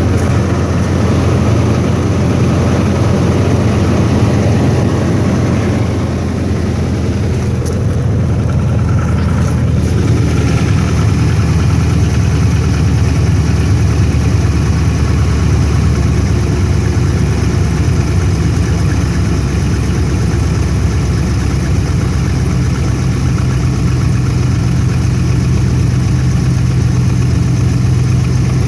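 A 5.7 Hemi V8 engine idling steadily in the first minute after a cold start at 20°F, having sat four days. The noise it makes cold is what the owner believes to be benign piston slap.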